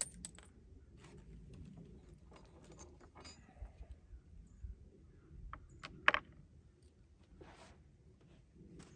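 Quiet handling sounds as a cartridge is loaded into an AR-15 rifle: small clicks and rustles, with one sharp metallic clack about six seconds in.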